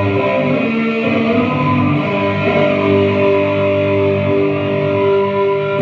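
Instrumental music with long held notes that change pitch every second or two, at a steady level.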